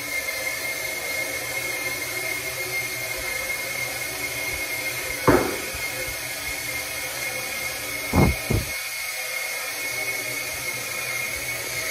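Steady fan-like whir with a thin high whine. Three short knocks cut through it, one about five seconds in and two close together about eight seconds in.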